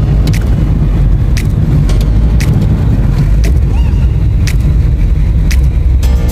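Car engine and road rumble heard from inside the cabin while driving, low and steady, with sharp clicks every half second or so.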